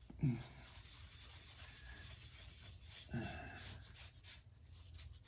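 Cloth rag rubbing wood stain onto the wooden face of a mahogany guitar headstock, a soft scrubbing hiss, with two brief louder sounds about a third of a second in and just after three seconds in.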